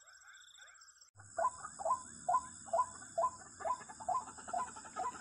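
An animal calling in a regular series of short notes, about two a second, starting about a second in and slowly growing fainter.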